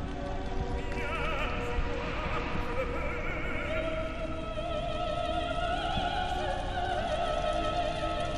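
Operatic singing: a high voice holds long notes with wide vibrato over classical accompaniment.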